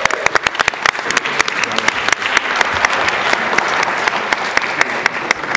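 Audience applauding, with one person clapping close by, whose sharp, loud claps stand out above the crowd's.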